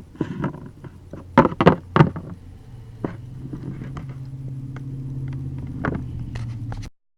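Several light, sharp taps, like small plastic toy figures knocked on a hard surface. After them comes a steady low hum that lasts about four seconds and cuts off suddenly.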